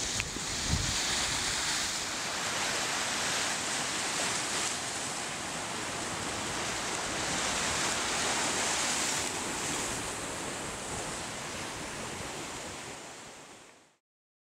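Sea surf washing on the shore, a steady rushing with some wind on the microphone. A brief thump comes about a second in, and the sound fades out near the end.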